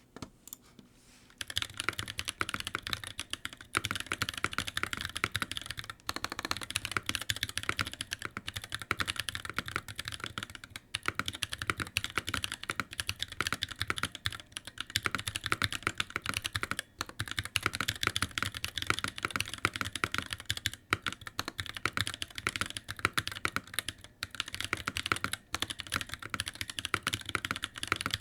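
Continuous typing on a mechanical keyboard with unlubed Durock POM T1 tactile switches in an NK65 Entry Edition case with PBT keycaps: a fast stream of key clicks that begins about a second and a half in and has brief pauses between runs. The unlubed switches give a spring and leaf ping that is by far the worst the typist has heard.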